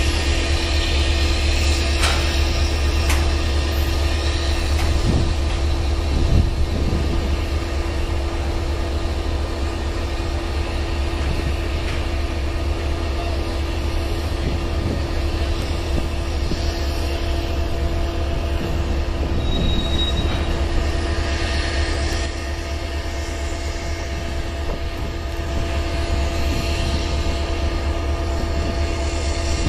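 Freight train cars rolling slowly past at close range: a steady low rumble of wheels on rail with a constant tone on top. There are a couple of sharp metallic clanks near the start and a brief high squeal about two-thirds of the way through.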